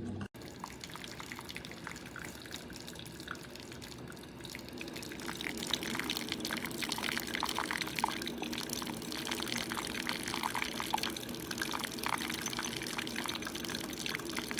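Simply Good Coffee 8-cup automatic drip coffee maker brewing: hot water spits and trickles out of the showerhead onto the grounds with a crackly, gurgling patter that grows louder about five seconds in. The water comes out mainly as a jet from one hole rather than spread over the grounds.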